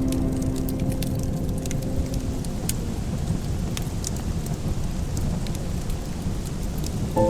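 Wood fire crackling, with scattered sharp pops over a steady low rumble. Held notes of soft music fade out in the first couple of seconds.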